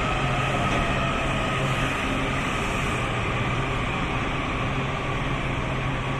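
Washington Metro 7000-series subway train standing at the platform, giving off a steady electrical hum with a low drone and a faint higher whine.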